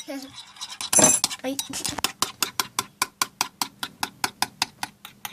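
A spoon clinking against a small bowl as it stirs thick slime of play gel and shaving foam, a fast even rhythm of about five clinks a second.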